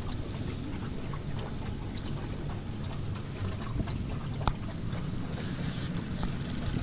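Wind rumbling on the microphone aboard a small open aluminium boat on calm water, with scattered small clicks and one sharper knock about four and a half seconds in.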